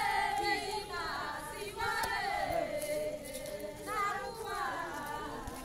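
A group of voices singing together in a chant-like song, holding long notes that slide down in pitch.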